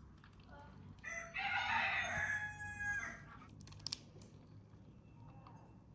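A rooster crowing once, a single call of about two seconds starting about a second in. Two short sharp clicks follow soon after.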